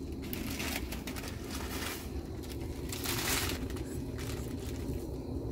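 Plastic instant-noodle packets crinkling as they are squeezed and handled, in irregular rustling bursts, the loudest about three seconds in.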